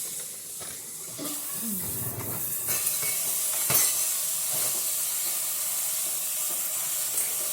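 Steady high hiss, with a single sharp click about three and a half seconds in.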